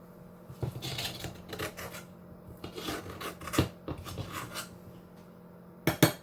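A serving spoon scraping and knocking against a pot and plate as food is dished up. The scrapes come irregularly for about four seconds, then two sharp clinks come near the end.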